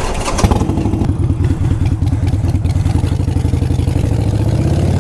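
Harley-Davidson V-twin engine running steadily with an even, lumpy pulse, with a brief clatter near the start.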